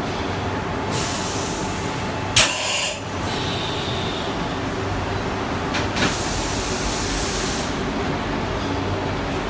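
Three bursts of compressed-air hiss over a steady machine hum; the second opens with a sharp click and the last lasts nearly two seconds.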